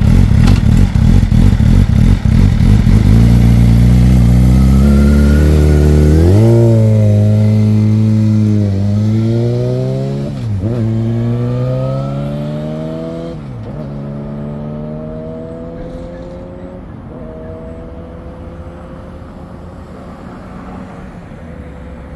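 Sport motorcycle engine pulling away hard from close by and accelerating into the distance. Its note climbs through the revs and dips at each of about five upshifts, fading steadily as it goes.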